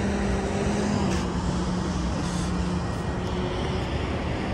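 A steady low engine drone over a loud outdoor rush of noise.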